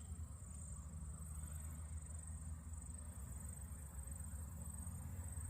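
Insects trilling steadily at a high pitch, over a faint low rumble.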